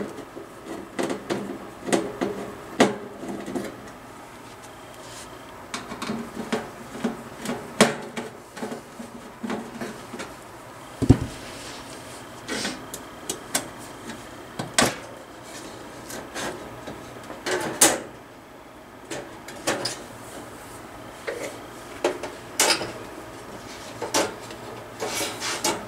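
Screwdriver backing screws out of the sheet-metal case of a Grants fan-forced heater, with scattered clicks and knocks of screws and metal parts being handled and the heater being moved about. A louder dull thump comes a little before halfway.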